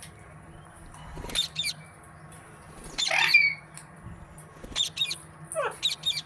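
Pet green parakeet giving several short squawks, the loudest and longest about three seconds in.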